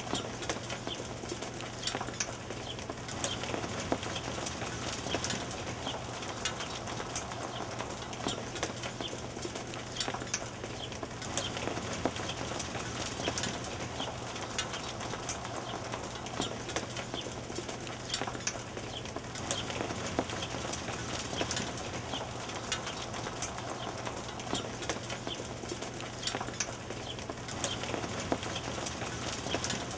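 Hail falling steadily: a dense, continuous patter of many small sharp clicks as hailstones strike the ground and nearby surfaces.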